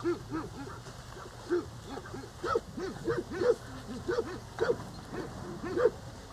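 A string of short animal calls, each rising and falling in pitch, coming singly or in quick runs of a few a second, with the loudest ones in the second half.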